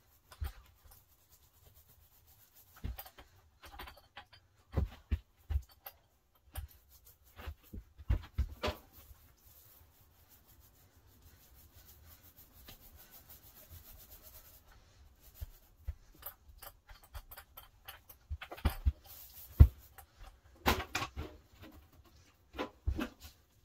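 A small paint roller rubbing softly as it spreads polyurethane over pine window trim, among scattered light knocks and clicks of tool handling. One sharper knock stands out about three-quarters of the way through.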